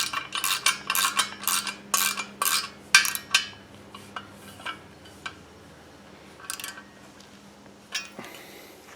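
Ratchet wrench with a 13 mm socket tightening a lock nut onto a bolt: a quick run of metallic clicks, about four a second, for the first three and a half seconds, then a few scattered clicks and taps.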